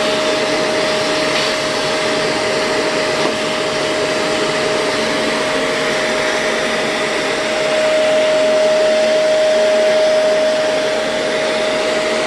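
Shark Navigator vacuum running with its edge-cleaning attachment: a steady motor whine over the rush of suction, a little louder for a few seconds past the middle.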